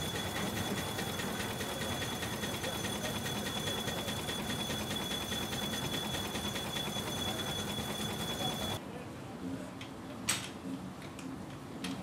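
Reeves 13 HP steam traction engine running, a rapid, even mechanical beat with a steady high whine. The sound cuts off about nine seconds in, leaving a quieter low hum with a single knock about a second later.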